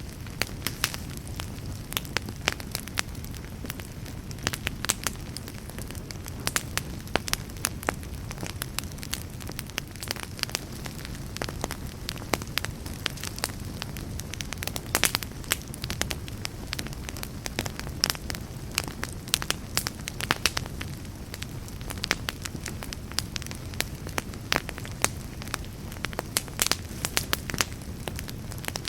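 Fireplace fire crackling, with sharp pops and snaps at irregular intervals over a low, steady rumble of the flames.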